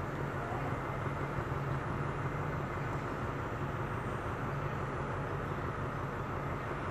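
Steady low rumble and hum of a diesel-hauled passenger train, heard from one of its carriages, with no sudden sounds.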